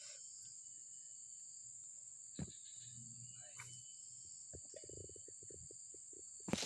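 Faint, steady high-pitched insect chirring, with a few scattered sharp clicks and a quick run of short ticks a little past the middle.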